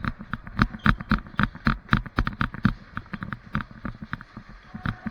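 Quick, uneven footsteps of a person running on the ground, a fast series of sharp thuds and knocks.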